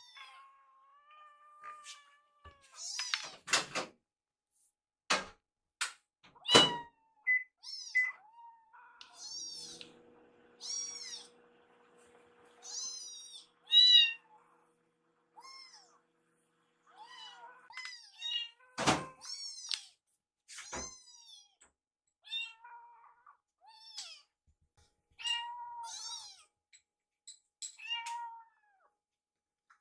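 Baby kittens mewing over and over, in short high-pitched calls with a loud one about 14 seconds in. A few sharp knocks, and a faint steady hum for several seconds in the middle.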